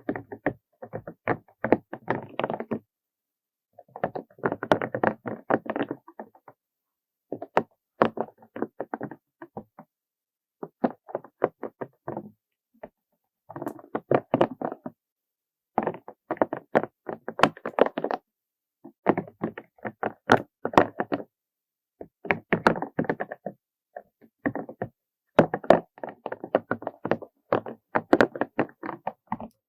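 ASMR tapping and scratching on small objects: rapid clicking taps that come in clusters of a second or two, with short pauses between them.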